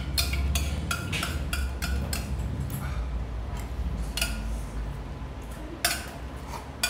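Metal spoon clinking and scraping against a small metal curry bowl: a quick run of clinks for the first few seconds, then a few sharper single clinks near the end, over a low background rumble.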